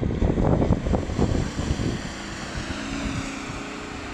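Ineos Grenadier off-roader driving through mud and puddles, its engine running under splashing and irregular thuds of mud and water for the first two seconds. After that comes a steadier engine drone that slowly fades.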